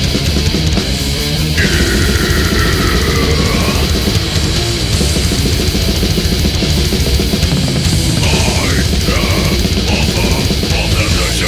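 Death metal song with heavily distorted guitars and dense drumming. A high lead line slides down in pitch and back up about two seconds in, and a wavering high lead comes in near the end.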